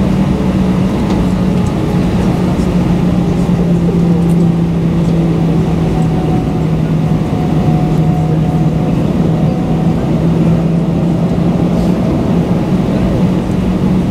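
Cabin noise inside an Airbus A320-214 taxiing, its CFM56-5B engines running at low taxi thrust: a steady drone with a low hum and no spool-up.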